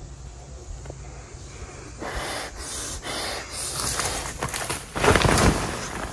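A hunter's breathy, snorting deer call blown through cupped hands, in several bursts with no clear pitch. A louder noisy burst about five seconds in.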